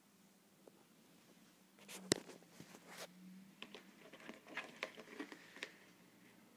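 Handling noise from a rubber-and-plastic gas mask (Avon FM53) being picked up and turned over on a wooden table: one sharp click about two seconds in, then a run of light, irregular clicks and taps. A faint steady hum runs underneath.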